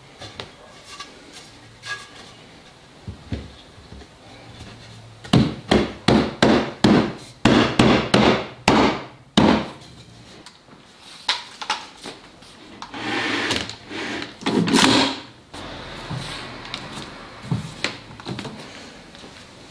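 A run of about a dozen sharp wooden knocks as doweled hardwood rails are tapped down onto MDF divider panels during a glue-up. Several seconds later comes a longer scraping slide of wood on wood, then a few light clicks.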